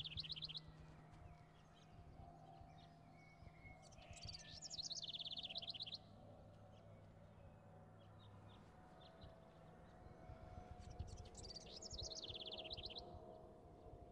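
A songbird singing faintly in short phrases of rapid high notes, several seconds apart.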